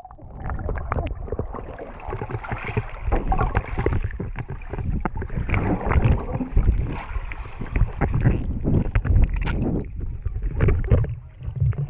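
Water churning and splashing right at a GoPro held by a swimmer, with many irregular knocks and thumps.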